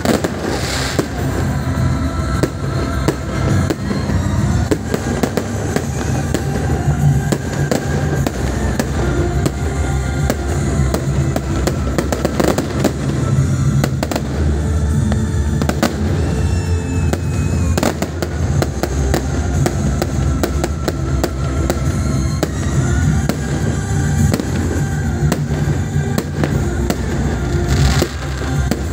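Fireworks display with repeated sharp bangs and crackles of bursting aerial shells, over music playing throughout.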